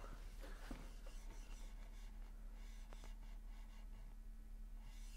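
Near silence: quiet room tone with a faint steady hum and a faint click about three seconds in.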